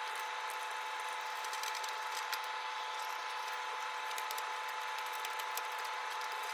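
Faint clicks and scrapes of a socket working out a condenser-fan-motor mounting bolt on a refrigerator's machine compartment, over a steady hum with two held tones.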